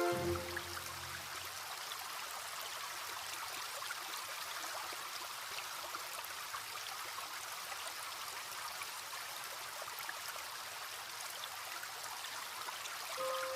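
Steady trickle of a small stream, an even water sound with fine droplet ticks. A music chord fades out in the first second and soft music notes come back in near the end.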